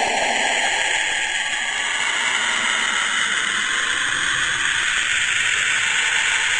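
Saturn's radio emissions recorded by a spacecraft and converted to sound: a steady hissing rush. Its main band slides from a low rushing up to a higher hiss over the first two seconds or so, then holds.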